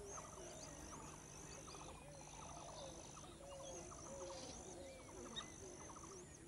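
Faint bird chorus: many birds calling at once in short chirps, quick trills and rising-and-falling whistled notes, over a steady high-pitched thin tone that breaks off now and then.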